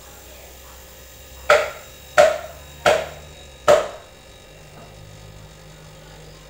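Four sharp knocks about three-quarters of a second apart, each with a short ringing tail, over the low steady hum of a running refrigerator compressor.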